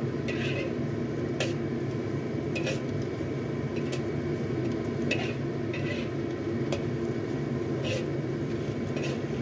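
Metal spatula scraping and knocking against a wok about once a second as leafy greens are stir-fried, over a steady background of frying sizzle.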